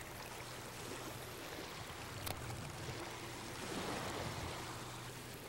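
Steady wash of shallow lake water lapping around a wading angler, with one faint click about two seconds in.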